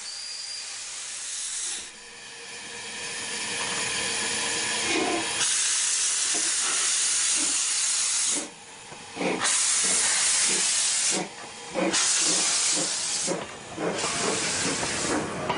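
Replica of the 1835 Adler steam locomotive pulling away, its steam hissing loudly in long stretches broken by short pauses, with a regular beat of puffs about twice a second underneath.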